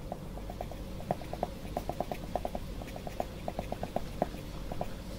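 Graphite pencil tapping and flicking short marks onto drawing paper to texture distant grass as dots: an irregular run of light ticks, several a second.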